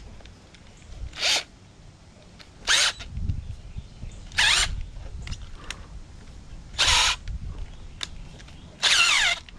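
Power drill/driver run in five short bursts, about every two seconds, trying to back out a microwave screw that is stuck fast and won't come out.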